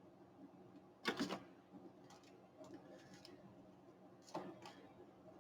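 Paper and craft supplies being handled on a desk: short, faint rustles and clicks, loudest about a second in and again around four seconds in.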